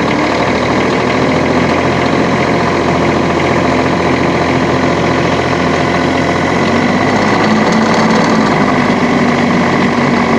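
Bobcat MT52's three-cylinder Kubota diesel running steadily just after a cold start on a near-freezing morning, still cold and a little cold-blooded.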